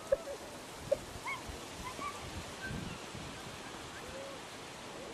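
A rooster attacking a small child on grass: two sharp thuds about a second apart near the start, and a few short, high cries scattered through, over a steady hiss of wind on the microphone.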